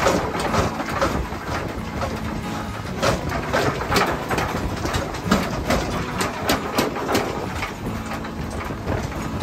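A steady low motor hum at the coal forge, with scattered sharp metallic clinks and knocks as iron tongs shift hammer blanks in the coals, several of them in the middle few seconds.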